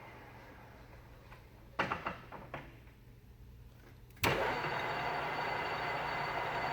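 Mori Seiki MH-3000 engine lathe with its 15 HP motor: a low hum and a few clunks about two seconds in, then about four seconds in the drive starts abruptly and runs on steadily with a high whine.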